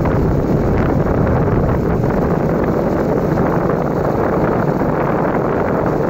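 Steady wind rush buffeting the microphone over the low, even noise of a vehicle moving along a dirt road.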